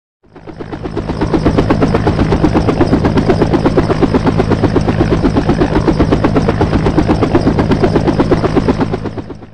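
A vehicle's engine: a rapid, even pulsing over a steady low drone, fading in at the start and out near the end.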